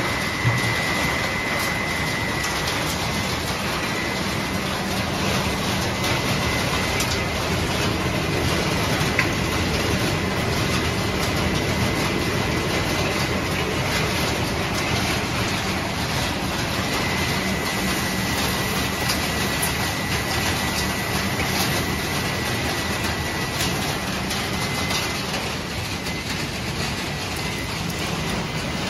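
Refrigerator crushing and sorting machinery running: a steady industrial din with crushed metal and plastic fragments rattling continuously through the equipment. A faint high whine comes and goes over a low motor hum.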